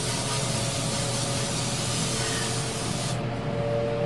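Compressed air blasted into the port of a hydraulic cylinder to clear it out: a steady hiss that cuts off suddenly about three seconds in. A steady low hum runs underneath.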